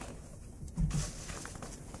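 Scattered rustling and scratching of hay and cut burlap scraps as a prairie dog gathers nesting material, with a louder low thump about a second in.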